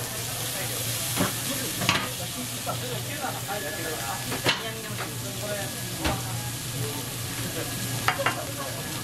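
Meat and vegetables sizzling on a flat steel teppanyaki griddle, a steady frying hiss, with a few sharp metal clinks from the steel grill presses and utensils knocking on the griddle.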